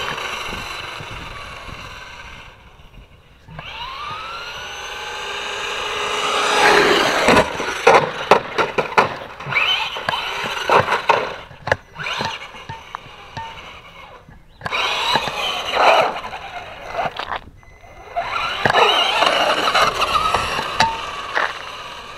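Traxxas Slash 2WD RC truck's electric motor whining up and down in pitch as it speeds up and slows, with tyres scrabbling on dirt and a run of knocks and rattles from bumps and landings. The sound drops away briefly a few times as the truck pauses or turns away.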